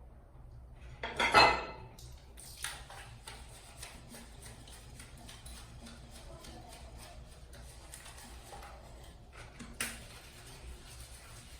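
Dishes and utensils clinking and clattering while a kitchen is cleaned: one loud clatter about a second in, then a run of small taps and scrapes, and another knock near the end.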